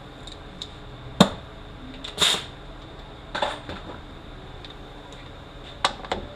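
Hand tools being handled on metal: a sharp clink about a second in, then two short metallic rattles and a few small clicks.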